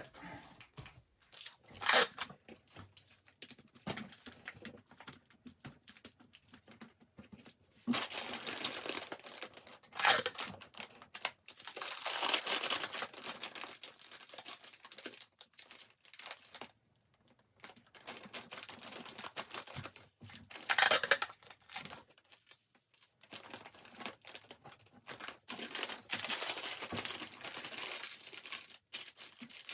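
Plastic packaging crinkling and rustling in bursts as items are handled, with three short, loud rips spread through.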